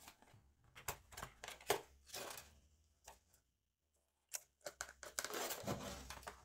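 Faint handling of a cardboard box: scattered light clicks and scrapes as the end flap is opened, then a longer stretch of cardboard rustling and scraping about five seconds in as the box is tipped to slide the inner box out.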